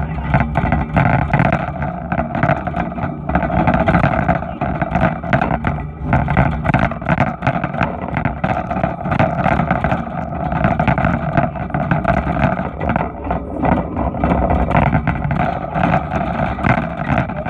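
Wire shopping cart being pushed, its wheels and metal basket rattling and clattering continuously, heard loud and close from a phone lying inside the cart.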